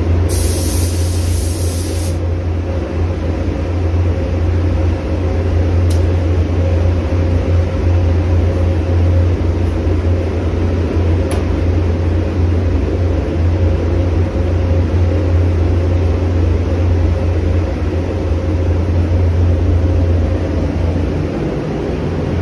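Paint booth ventilation running with a steady low hum. For the first two seconds a SATA 4000 RP spray gun hisses as it lays clear coat, then the hiss cuts off.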